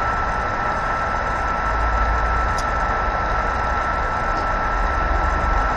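Steady background noise with no speech: a hiss, a thin constant high whine and an uneven low rumble.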